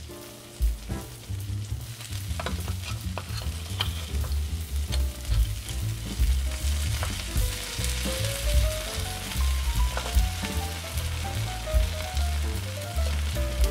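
Mozzarella cheese with sliced almonds sizzling as it fries in a nonstick pan, with a wooden spatula scraping and tapping against the pan as a browned disc is lifted and flipped.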